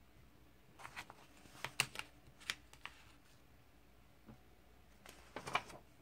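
Pages of a comic book being turned by hand: two bursts of paper rustling and flicking, about a second in and again near the end.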